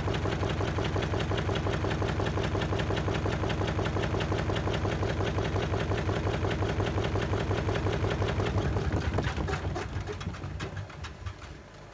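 Washing machine on its spin cycle with wet towels thrown into the drum, running with a rapid, even knocking. About nine seconds in it winds down and fades.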